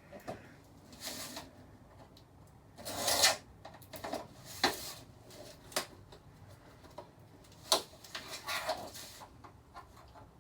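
A flat-screen TV's casing and metal back being handled and pulled apart: irregular scraping and rubbing, with a few sharp clicks.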